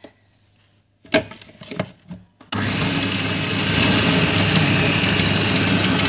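Food processor: a few plastic knocks as the lid is fitted onto the bowl, then about two and a half seconds in the motor starts and runs steadily at full speed, chopping onions, green chillies and coriander.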